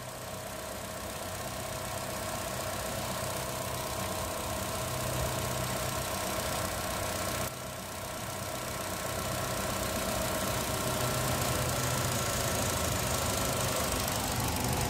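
Opel Meriva B engine idling steadily, heard close up over the open engine bay, with a short break in the sound about halfway through.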